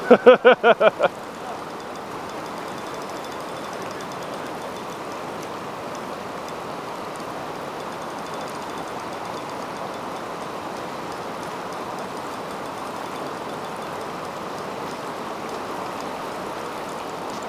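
Fast creek rapids rushing steadily over rocks. In the first second a man's voice breaks out in a quick run of about six short pulses.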